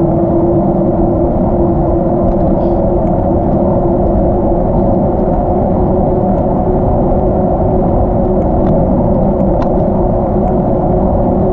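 Wind and tyre noise picked up by a camera on a moving bicycle: a constant low rumble with a steady hum, and a few faint ticks.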